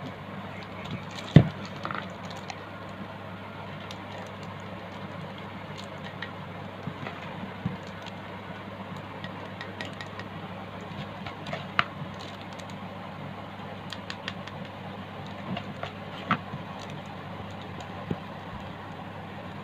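A plastic spoon scraping and tapping as thick, wet bait paste is pressed into a plastic bag lined inside a jar. There are scattered sharp taps, the loudest about a second and a half in, over a steady low hum.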